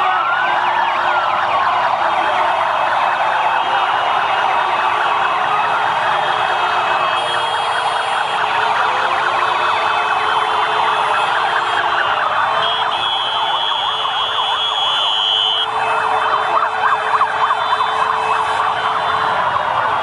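Many police motorcycles and scooters sounding their sirens and horns at once, a deafening honk. Several wailing sirens rise and fall over one another above long held horn notes, in a continuous din.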